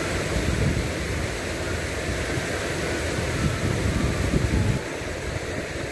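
Water rushing over a low concrete weir, a steady rush, with wind buffeting the microphone in low rumbles that ease a little near the end.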